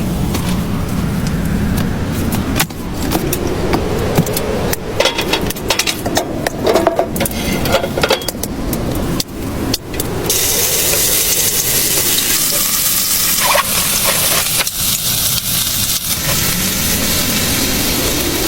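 Cooking sounds: a run of sharp knocks and scrapes, then from about ten seconds in a steady sizzling hiss.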